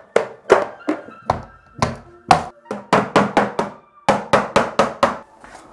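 A rapid, irregular series of sharp knocks, about fifteen, with a short pause about four seconds in, as plastic cable trunking lid is knocked into place; background music plays underneath.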